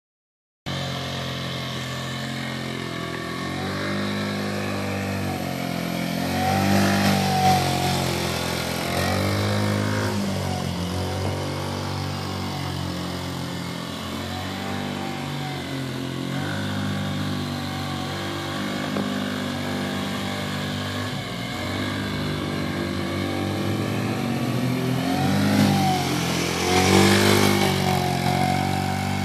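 Kawasaki KFX50 youth ATV's small four-stroke single-cylinder engine running as it is ridden, its pitch rising and falling over and over as the throttle is opened and eased off, loudest twice as it revs harder.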